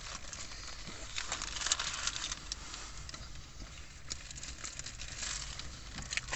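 Paper burger wrappers crinkling and rustling in the hands, with a steady run of small crackles that come thickest about a second in and again near the end.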